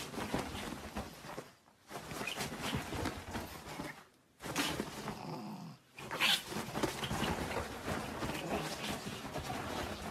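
A pug grunting and breathing noisily while it squirms and burrows into bedsheets, with the sheets rustling. The sound comes in three long bouts broken by short pauses.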